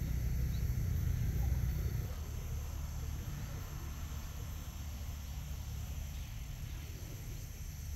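Outdoor field ambience: a steady low rumble, louder for the first two seconds, under a steady high-pitched insect drone.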